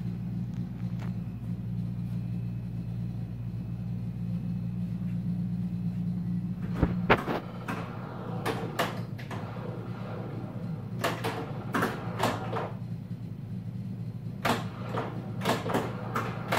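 A steady low hum, then, from about seven seconds in, clusters of sharp clacks and knocks from a Bally Flash Gordon pinball machine being played: flippers firing and the ball striking the playfield.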